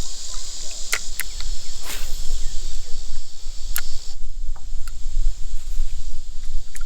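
Chorus of insects, crickets or cicadas, buzzing steadily in a high band, falling silent about four seconds in and starting up again near the end, over a low rumble and a few sharp clicks.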